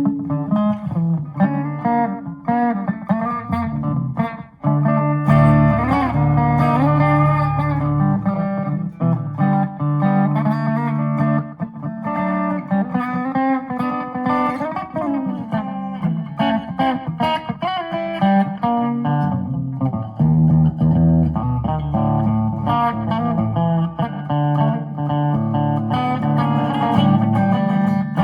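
Electric guitar with a clean, twangy country tone playing a run of picked licks, with string bends and low bass notes under the melody.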